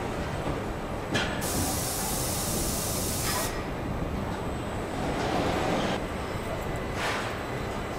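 Car assembly-line machinery running steadily, with a few short knocks and a sharp hiss of air that starts suddenly just over a second in and cuts off about two seconds later.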